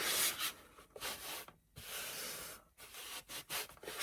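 Hands rubbing and smoothing Mod Podge–glued fabric down onto the side of a box: a soft, scratchy rubbing in several short stretches with brief pauses between them.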